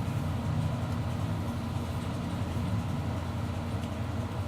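Steady low hum of a running machine, even in level throughout.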